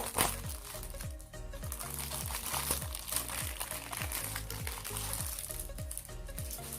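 Background electronic music with a steady bass beat about twice a second, with plastic packaging crinkling over it as the mask's bag is opened.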